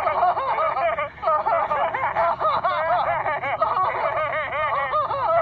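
Continuous laughing and giggling in quick repeated ha-ha pulses, with more than one voice at a time.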